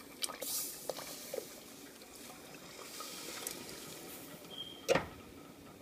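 Coconut milk pouring from a tin can into a stainless steel pot of liquid, with a few light clicks early on and one sharp metallic knock near the end, from the can striking the pot.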